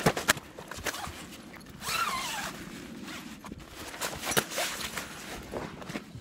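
Nylon fabric of a padded carp unhooking mat being handled, rustling with scattered sharp clicks, and a zip pulled in one longer stroke about two seconds in that falls in pitch.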